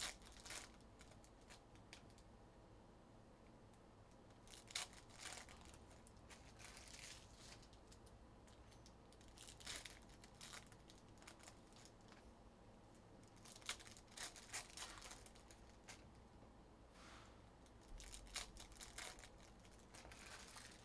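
Faint crinkling and tearing of trading card pack wrappers, in a handful of short scattered bursts with quiet handling between.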